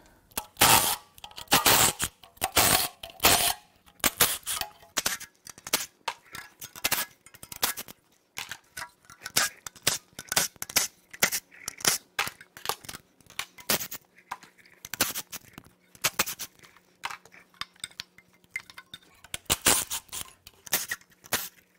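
Cordless impact wrench run in short hammering bursts to remove exhaust heat-shield bolts, mixed with metallic clanks and rattles of the sheet-metal heat shield being worked loose.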